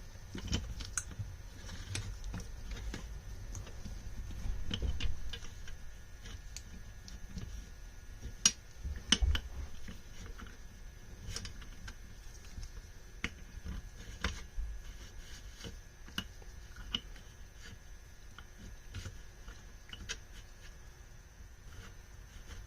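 Scattered light clicks and taps of metal parts being handled as a throttle shaft is worked through the slide arms and rack brackets of a set of Mikuni VM22 carburetors. Two sharper clicks come about eight and nine seconds in.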